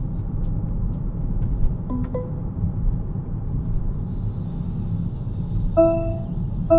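Car speed warning alert chiming: a brief tone about two seconds in, then near the end a repeating beep about once a second. Under it is the steady low rumble of a car being driven.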